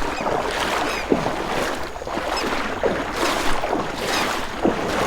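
Water sloshing and splashing around the legs of someone wading through calm, shallow bay water, in irregular swishes.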